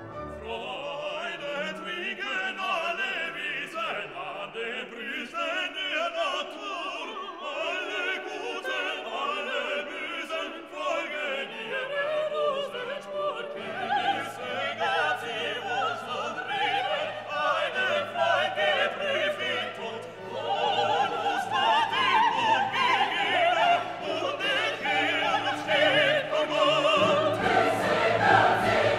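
Background classical music: operatic singing over an orchestra, growing louder about two-thirds of the way through.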